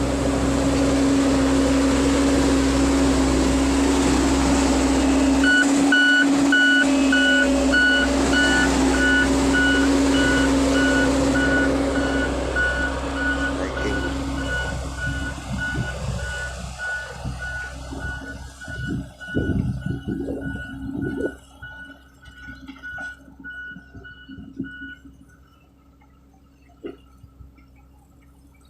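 Case 580L backhoe's diesel engine running hard, with its reversing alarm beeping steadily from about five seconds in. About halfway through, the engine fades and the beeping carries on more faintly until near the end.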